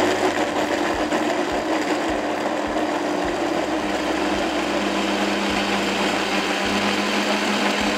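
Countertop blender running steadily, puréeing walnuts, spices and chicken broth into a smooth sauce. The motor's hum drops to a lower pitch about halfway through.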